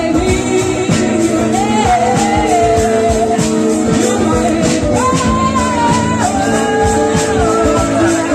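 A woman singing a slow song live, holding long notes, over strummed acoustic guitar.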